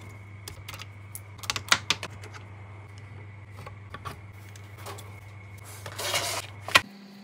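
Small metal clicks and clinks of guitar tuning-machine hardware (tuners, nuts and screws) being unscrewed and taken off a headstock, with a short rattle about six seconds in and a sharp click near the end. A steady low hum runs underneath.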